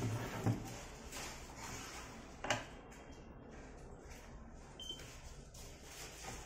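Light handling clicks from a linear encoder's read head and aluminium scale housing, with one sharp click about two and a half seconds in. Near the end comes a short high electronic beep from a key pressed on the digital readout to zero the axis.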